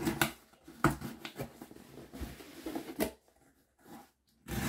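Cardboard shipping box being cut open with a small blade and handled: faint scraping of the blade along the tape and cardboard, with a few sharp knocks of the box and tool against the table.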